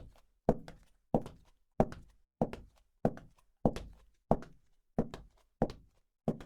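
High heels walking at a steady, unhurried pace, each heel strike a sharp click with a short ringing tail, about ten steps.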